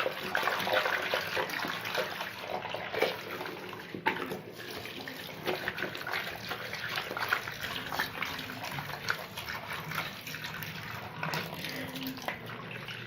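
Tap water running and splashing over a cloth vacuum-cleaner dust bag as it is rinsed clean by hand, with irregular splashes throughout.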